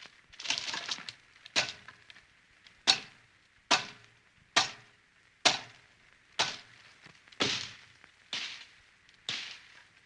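A knife chopping: about ten sharp strikes, roughly one a second, each with a short fading tail.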